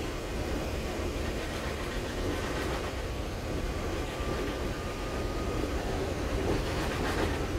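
Interior of a Volvo B8RLEA articulated bus on the move: its rear-mounted diesel engine and road noise make a steady low rumble. A faint high whine comes in about three seconds in and fades out about two and a half seconds later.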